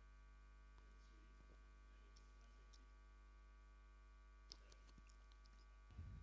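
Near silence with a steady electrical hum. A few faint clicks come about four and a half seconds in, and a brief low sound near the end.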